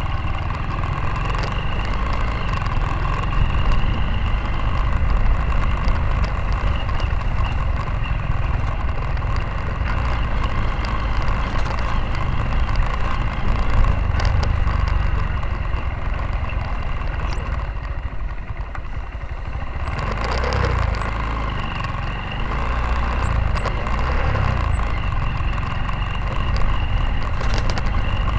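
Motorcycle engine running steadily while riding a rough dirt road, with a steady whine over a heavy low rumble of wind buffeting the microphone.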